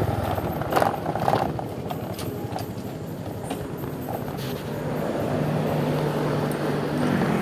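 Roadside traffic noise with a few sharp knocks and clicks in the first two seconds, then a motor vehicle engine hum that grows a little louder in the second half.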